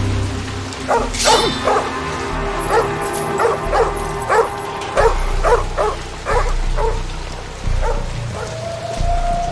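A dog barking in a fast run of about a dozen barks, roughly two a second, for several seconds before stopping.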